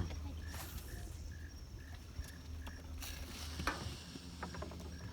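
An insect, likely a cricket, chirping steadily about three times a second at one pitch, over a low steady hum, with a few faint clicks partway through.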